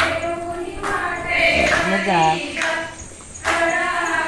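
Women's voices singing a fugdi folk song together, in held phrases with a short break about three seconds in.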